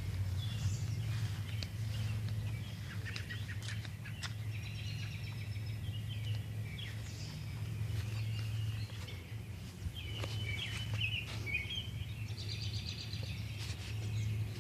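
Small birds chirping and trilling on and off, over a steady low hum.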